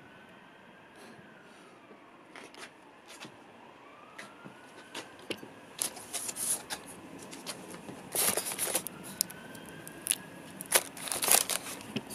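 Plastic packaging bag and cardboard rustling and crackling as the scooter is unpacked from its box, loudest in bursts about eight and eleven seconds in. A faint siren wails up and down behind it.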